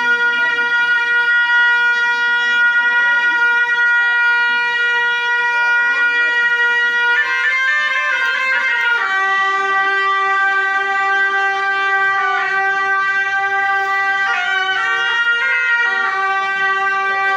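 A wind instrument playing long held notes. One steady high note gives way about halfway through to a quick run of ornaments that settles on a lower held note, and two more short flourishes come later.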